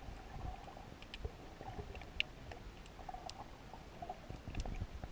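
Underwater sound through a submerged camera: a low, muffled rumble of moving water with scattered sharp clicks and ticks.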